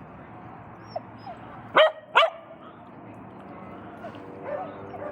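A dog barks twice in quick succession, about two seconds in.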